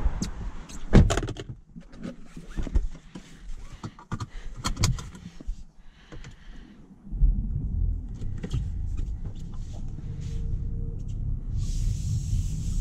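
The driver's door of a BMW 218i Active Tourer shuts with a thunk about a second in, followed by a few light clicks inside the cabin. About seven seconds in, the 1.5-litre three-cylinder petrol engine starts and runs with a steady low rumble, and near the end the car moves off with a hiss of tyres on the wet gravel.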